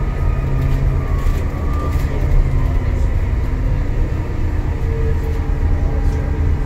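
Cabin noise on the upper deck of an Alexander Dennis Enviro400 MMC double-decker bus travelling at speed: a steady low drone of engine and road noise.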